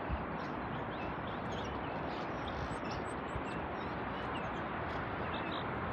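Steady outdoor background hiss with faint, brief high bird chirps scattered through it.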